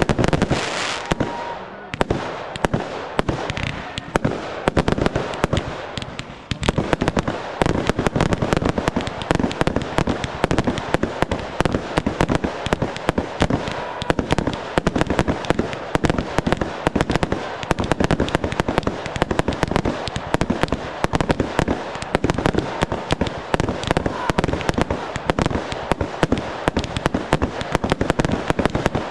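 Fireworks display: shells bursting with bangs and crackling. The firing thins out over the first few seconds, then from about a quarter of the way in becomes a dense, rapid barrage of reports with barely a gap between them.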